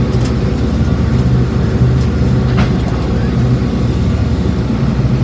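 International Harvester 1086 tractor's turbocharged six-cylinder diesel running steadily under load, heard from inside the cab while it pulls a round baler. A single short click sounds about two and a half seconds in.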